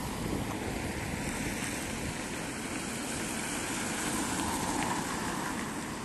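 Wind buffeting the microphone as a low, uneven rumble, over a steady outdoor hiss of street ambience.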